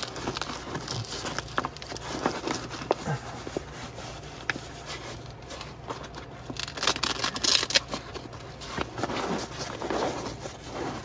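A nylon fabric coilover cover rustling and crinkling as hands pull and smooth it down over a car's coilover, with scattered small scratches and clicks.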